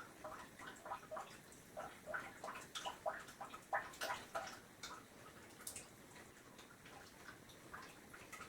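A spoon stirring yeast and sugar into warm water in a bowl, clinking lightly against the side about three or four times a second. The stirring thins out and fades about halfway through.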